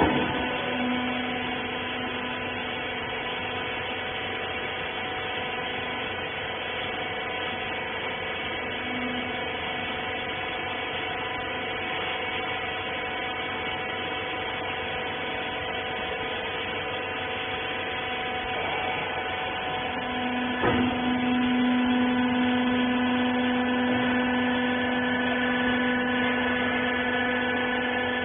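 Hydraulic wiper bagging baler running: a steady electric-motor and pump hum with a pitched whine. About twenty seconds in there is a knock, and the hum grows louder from then on.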